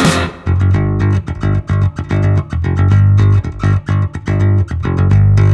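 Background music: a plucked bass and guitar riff in a steady rhythm, with the bass strongest.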